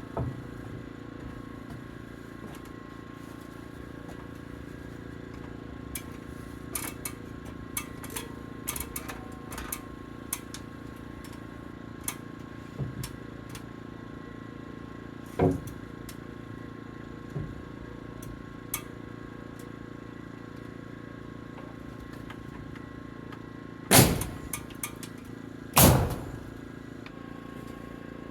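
Nail gun firing nails into a 2x6 board: one sharp shot about fifteen seconds in and two louder ones about two seconds apart near the end, with lighter knocks and clicks of the board being handled in between, over a steady hum.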